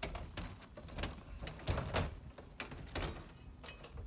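Hand-held toy sparkler fizzing, with irregular sharp crackles.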